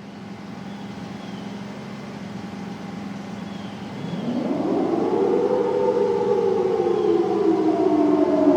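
1962 Federal Thunderbolt 1003 civil defense siren sounding the Attack signal, heard from about 2,500 feet away. A faint low tone is followed, about halfway through, by the siren's pitch sweeping up steeply and then starting a slow fall.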